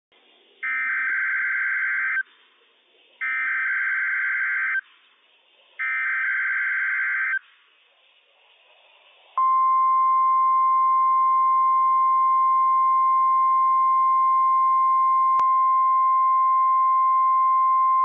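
NOAA Weather Radio test signal: three short bursts of SAME digital header data, each about a second and a half long, with brief gaps of faint radio hiss between them. About halfway through, the steady, single-pitch 1050 Hz warning alarm tone starts and holds for about nine seconds.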